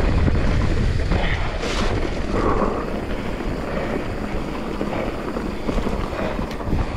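Wind buffeting the camera microphone with a steady rumble, as from a mountain bike rolling fast down a dirt trail.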